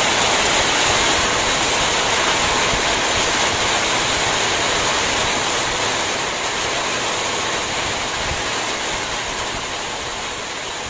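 Heavy rain falling steadily, a dense even hiss that grows a little quieter over the last few seconds.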